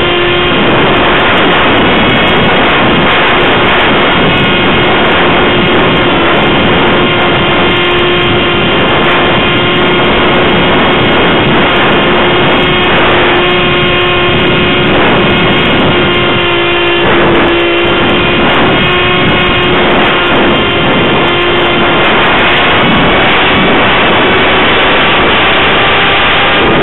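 Wing Dragon RC plane's electric motor and propeller, heard from a camera on board in flight: a steady whine with wind rushing and buffeting over the microphone. The whine rises slightly in pitch near the end.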